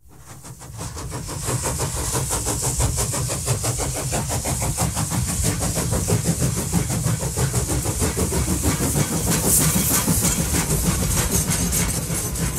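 Steam train running, a rapid even chuffing with a strong hiss, fading in over the first second or so and then holding steady.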